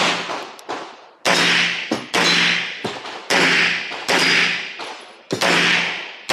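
A string of pistol shots fired roughly a second apart, each with a long echoing tail off the concrete walls of the shooting bay.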